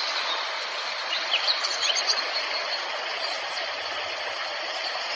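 Steady, fairly loud outdoor hiss with a few short high chirps about a second and a half to two seconds in and again near the end.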